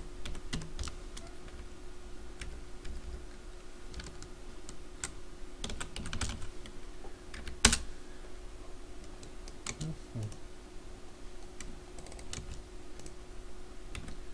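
Computer keyboard keys clicking in scattered, irregular taps, with one sharper click about eight seconds in, over a faint steady hum.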